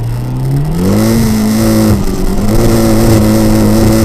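Turbocharged Mitsubishi 4G63 four-cylinder engine in a Hyundai Elantra pulling hard through the gears. Its note climbs in pitch about a second in, drops briefly at a gear change near two seconds, then holds steady under load.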